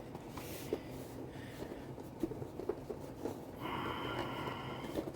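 Soft handling noises of a model locomotive and its packaging being handled: scattered small clicks and a brief rustle. About three and a half seconds in comes a short breathy, pitched sound lasting about a second and a half.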